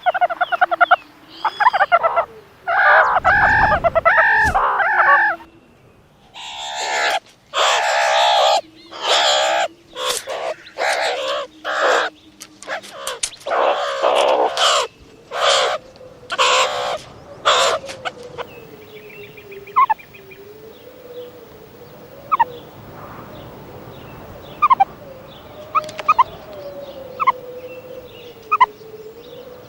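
Meerkats calling: a run of loud, harsh, rapidly repeated calls for about the first 18 seconds, then only scattered short chirps over a faint wavering tone.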